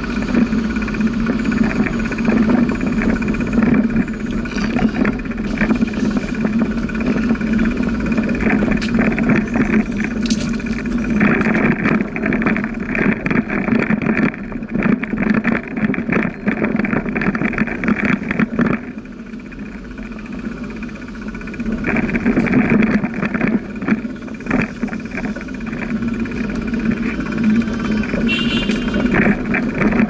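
Riding noise from a bicycle in motion: a steady rumble of tyres and wind with frequent rattling clicks. It drops for a few seconds just past the middle.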